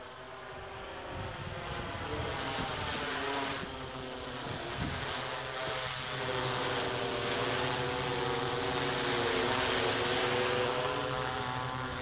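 Yuneec Q500 quadcopter's electric motors and propellers whirring overhead, the pitch wavering slightly as the motors adjust. It gets steadily louder as the drone comes closer.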